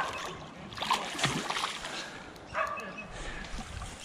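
Hooked carp splashing at the surface close to the bank as it is played in. Two short whining calls sound, one at the start and one about two and a half seconds in.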